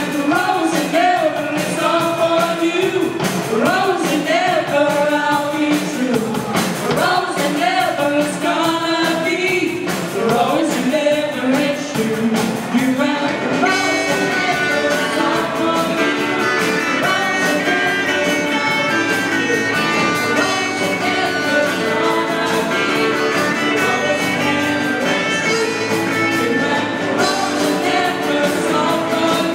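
Rock song from a band with a woman singing over electric guitar, bass and drums. The singing gives way to denser held notes about halfway through.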